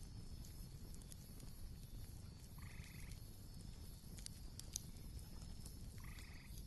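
Faint campfire ambience: a low steady rumble with scattered sharp crackles. Twice, about three and a half seconds apart, a short pulsed animal call sounds, each about half a second long.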